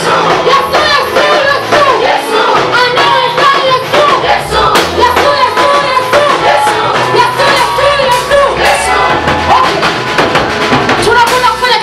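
Gospel praise song: a choir singing together over a band with drums, in a steady beat.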